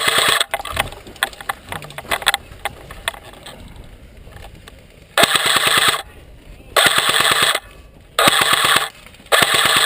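Electric airsoft gun, a Lancer Tactical PDW, firing full-auto: a burst at the start, then four short bursts of rapid shots about a second apart in the second half.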